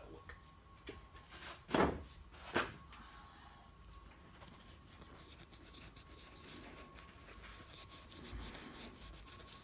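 Two knocks less than a second apart, about two seconds in, then faint rubbing of a cloth as a small plastic LEGO helmet is buffed with plastic polish.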